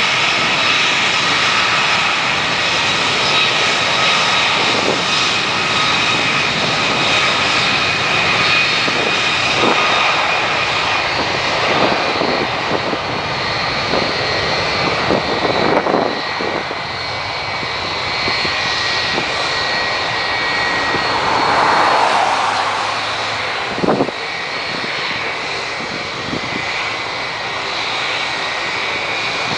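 Airbus A340-600's four Rolls-Royce Trent 500 turbofans running at takeoff thrust during its takeoff run: a steady jet roar with high whining fan tones, slowly growing fainter as the airliner moves off.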